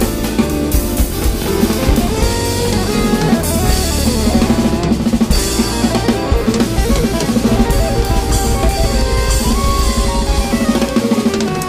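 Drum kit played over music with guitar: bass drum, snare and Zildjian K cymbals driving a steady beat under sustained, sliding guitar notes.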